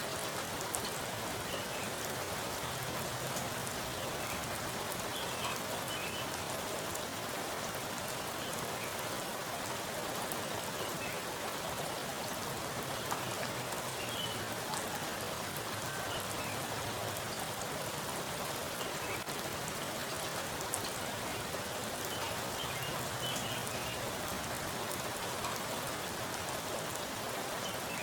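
Heavy rain falling onto a pool of water: a steady, dense patter with scattered sharper drop splashes.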